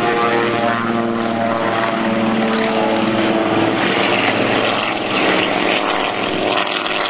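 Piston-engined World War II fighter planes running at high power as one takes off. Several steady engine tones are heard at first, and about four seconds in they give way to a louder rush of propeller and engine noise as the plane passes.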